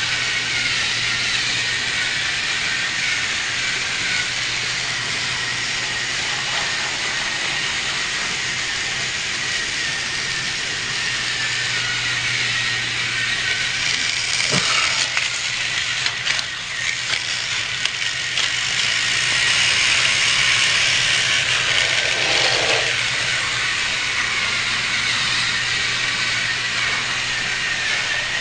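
Battery-powered TrackMaster toy train running on plastic track: a steady whirr of its small motor and gears, with a cluster of clicks and rattles a little past halfway.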